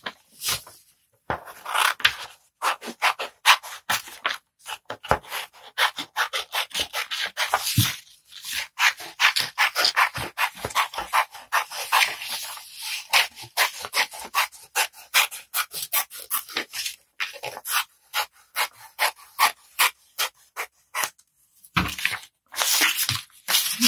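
Scissors snipping through paper around the edge of a cut-out circle: a quick run of short cuts with brief pauses, mixed with paper rustling as the sheet is turned.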